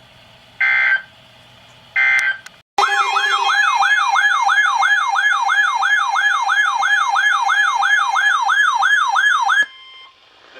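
Two short bursts of emergency alert digital data tones. Then comes a loud siren-like attention tone that sweeps up and down quickly, about two and a half times a second, for about seven seconds and then cuts off. It is the alert signal that comes before an Emergency Alert System warning message.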